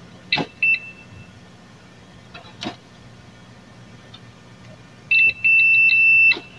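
Multimeter continuity buzzer beeping as the test probes touch a diode on a TV power board: a short high beep about half a second in, then a longer beep with brief dropouts near the end, with a few sharp probe clicks. The beeping shows the diode reading as a short, which it shouldn't.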